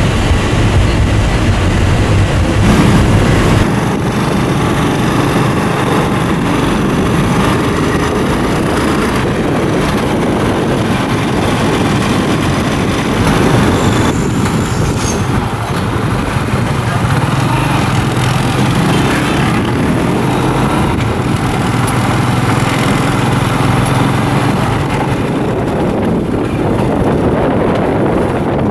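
Steady engine and road noise of a moving vehicle. About three and a half seconds in it changes from the hum inside a closed van to the open engine and wind of a tuk-tuk running through town streets.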